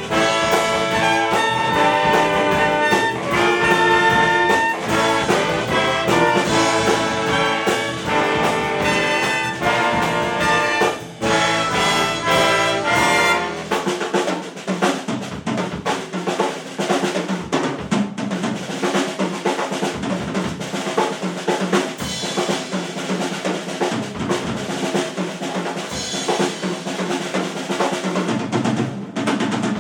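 Jazz-funk big band playing live: the trumpets and trombones play loud ensemble lines over the drum kit. About thirteen seconds in the horns drop out, leaving mostly drums with a thinner backing.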